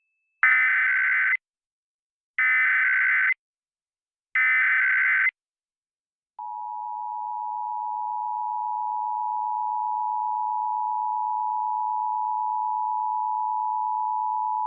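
Emergency Alert System SAME header: three bursts of warbling data tones, each about a second long and two seconds apart. About six seconds in, the steady two-tone EAS attention signal (853 and 960 Hz together) starts and holds, swelling slightly at first.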